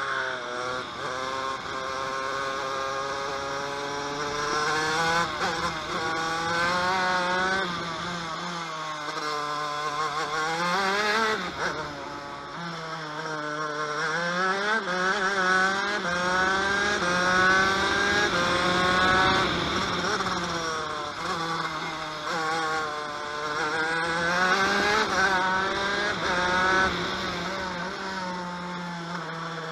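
TM KV92 125cc single-cylinder two-stroke shifter-kart engine at racing pace. It revs up hard through the gears with a quick drop in pitch at each upshift, then falls away in pitch under braking and downshifts before climbing again.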